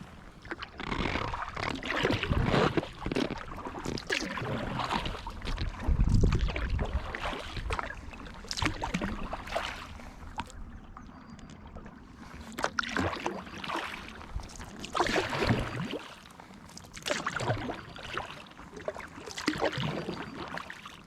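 Kayak paddle strokes through the water, an irregular splash and swish every second or two, with a louder low thump about six seconds in.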